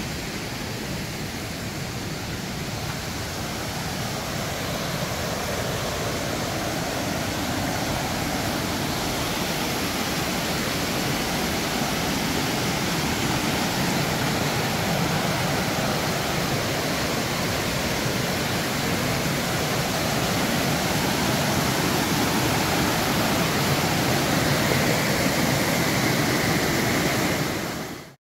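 Rushing water of a rocky river cascade: a steady, even roar of falling white water that grows a little louder as the cascade is approached.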